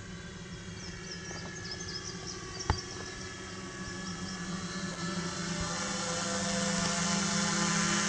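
Hexacopter drone's six electric motors and propellers buzzing with a steady hum, growing louder as it flies in overhead. A single sharp tap a little before the middle.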